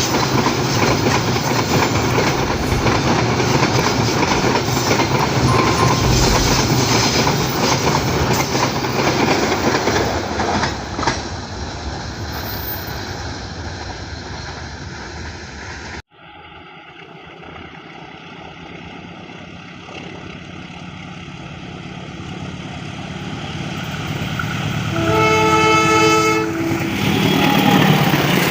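A train passes close by with a loud clatter of wheels over the rail joints, fading away after about ten seconds. After a break, another train approaches, growing steadily louder, and sounds a long blast of its horn of several tones together, about two seconds long, near the end.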